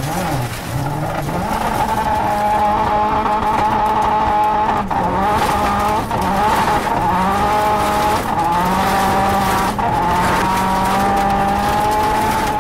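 Dodge Dart rally car's engine running hard at high revs, its pitch held high with several brief dips as the driver lifts or shifts, over the hiss of tyres sliding on loose dirt.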